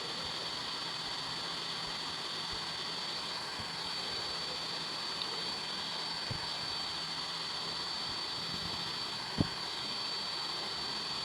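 Steady whir with a high, thin constant whine from a powered-on DJI Mavic Pro's internal cooling fan, with a single sharp click about nine seconds in.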